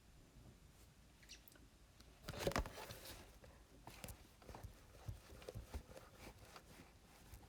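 Faint, scattered taps and clicks of a stylus on an iPad touchscreen, with a louder cluster of knocks about two and a half seconds in.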